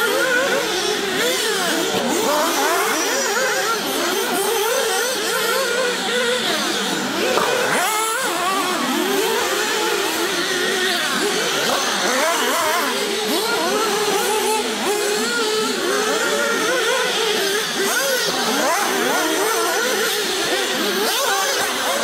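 Several 1/8-scale nitro RC car engines, small two-stroke glow engines, running together at racing speed, their pitches constantly rising and falling and overlapping as the cars accelerate and brake around the track.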